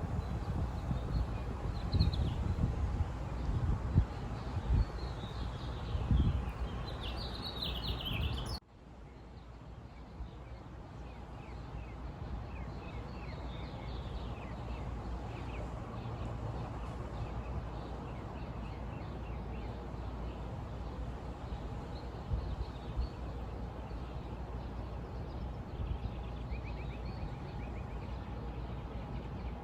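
Small birds chirping over steady outdoor background noise, with low rumbles at first. About a third of the way in the sound cuts abruptly to a smoother, even background, and the chirping goes on.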